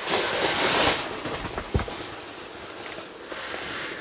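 Rustling and scraping of clothing and camera against rock walls while squeezing through a narrow rock crevice, loudest in the first second, with a couple of short knocks about a second and a half in.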